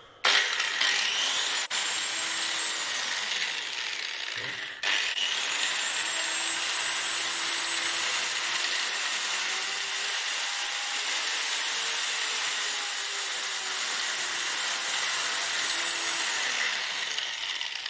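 LB100-1200W electric car polisher running free in the air, not on a panel: a steady high whine that cuts out for an instant about five seconds in and picks straight back up, rises slowly in pitch toward the middle and eases back down, then winds down at the very end.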